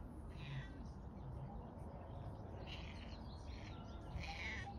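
A few short, high-pitched animal calls, three or four in all with the last and clearest near the end, over a steady low rumble.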